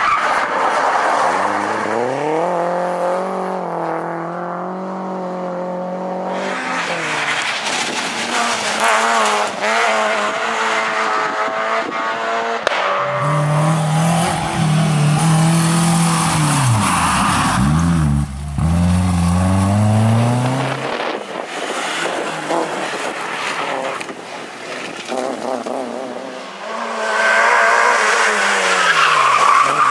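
Rally car engines revving hard through several passes, the pitch climbing and then dropping with gear changes and lifts off the throttle, with a sharp drop and climb back up about two-thirds of the way through.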